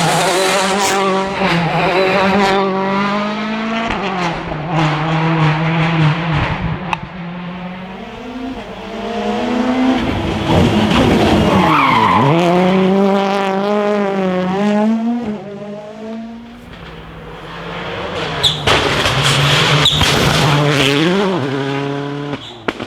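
Rally cars driven flat out past the stage, engines revving hard and dropping through gear changes. About halfway through, the engine note falls sharply as a car passes close, and near the end comes a series of sharp cracks.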